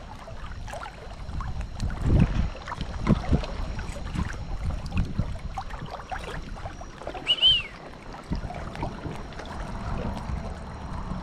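Water splashing and sloshing as a crab dip net is worked through shallow water around a wader, with irregular soft knocks. A short high chirp comes about seven seconds in.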